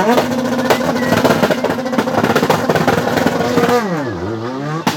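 Car engine held at high revs with a rapid crackle of exhaust pops, typical of anti-lag. About four seconds in the revs dip and climb again, and one sharp bang comes near the end.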